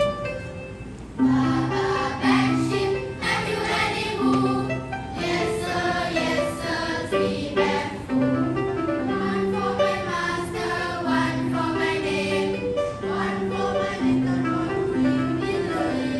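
School choir singing in harmony over steady held accompaniment notes.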